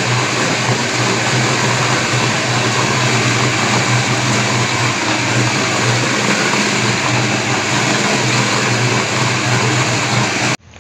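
Bowl cutter with a spinning steel bowl running steadily as it grinds meatball dough: a loud motor drone over a constant low hum. It cuts off abruptly near the end.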